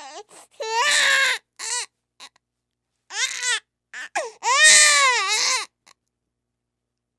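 Baby crying in a string of wailing cries broken by short silent gaps. The longest and loudest wail, a little past the middle, rises and then falls in pitch.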